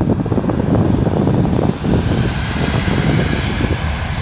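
The CFM56 jet engines of a Boeing 737-800 on its landing roll: a steady rumble with a faint high whine that rises in pitch over the first two seconds. Wind buffets the microphone throughout.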